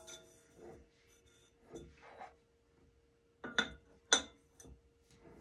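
The globe shade of a Scentsy Stellar electric fragrance lamp being turned and handled on its base: soft rubbing and light clinks, with two sharper clinks a little over halfway through, each ringing briefly. A faint steady hum runs underneath.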